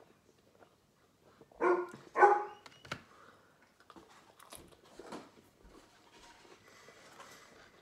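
A dog barking twice in quick succession, about two seconds in, followed by faint small clicks and rustles.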